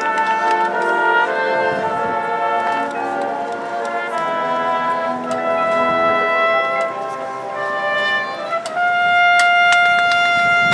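Marching band brass section playing sustained chords with moving lines, then swelling into one long held chord about nine seconds in, the loudest part, with sharp percussion strikes over it.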